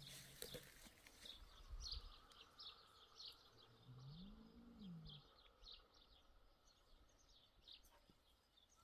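Faint chirps of small birds, repeated many times, with a short low hum that rises and falls about four seconds in.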